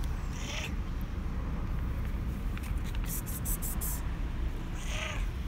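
Black-and-white cat meowing twice, briefly about half a second in and again near the end, asking for food, over a steady low rumble.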